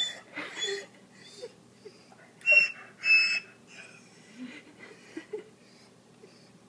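Corgi giving a run of short, high, wheezy whines, the two loudest about two and a half and three seconds in.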